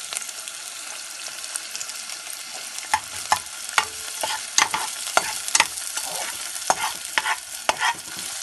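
Chopped onions frying in oil in a pot, a steady high sizzle. From about three seconds in, a spatula stirs them, clicking and scraping against the pan at irregular moments.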